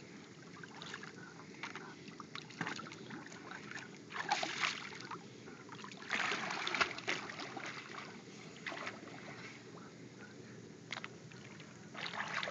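Pool water splashing and sloshing as a child swims and dives, with louder bursts of splashing about four seconds and six seconds in.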